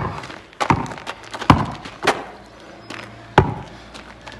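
A basketball dribbled hard on asphalt: about five sharp bounces at uneven intervals, each with a brief ring.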